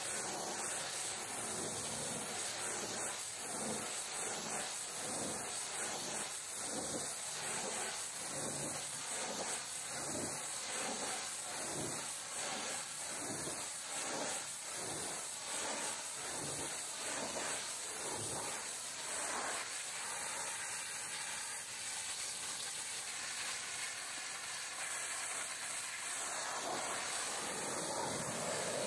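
High-pressure washer jet spraying the rear doors and bumper of a box trailer, a steady hiss of water striking the panels. For the first twenty seconds or so it pulses about twice a second as the lance sweeps back and forth.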